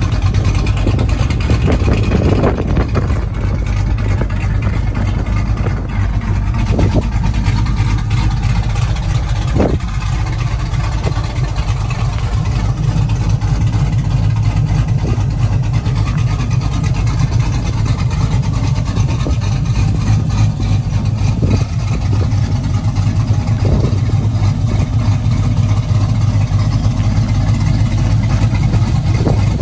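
Cammed Chevrolet Silverado's LS V8 with a Brian Tooley stage 3 camshaft idling steadily through open exhaust cutouts, with no catalytic converters, giving a loud, deep rumble.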